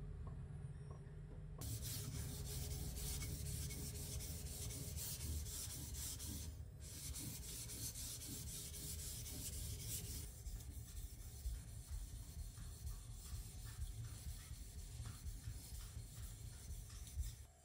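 Steel deba knife blade being stroked back and forth on a wet whetstone: a gritty scraping of steel on stone that starts about two seconds in. From about ten seconds in, on a second stone, the scraping is quieter and comes as separate back-and-forth strokes.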